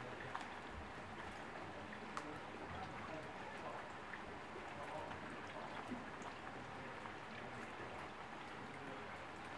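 Rain falling on a puddled paved walkway, with many small drop splashes ticking at random over a steady wash of running water from a drainpipe outlet.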